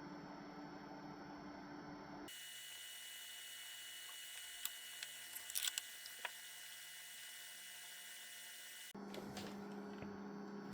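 Metabo KB 18 BL cool box running, a faint steady hum from its cooling fan, with a few light clicks midway. The hum's pitch and tone change abruptly twice.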